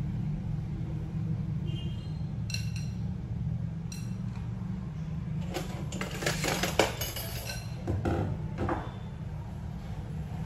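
Plates and dishes clinking and knocking in several short bursts as they are handled, the sharpest knock about seven seconds in, over a steady low rumble.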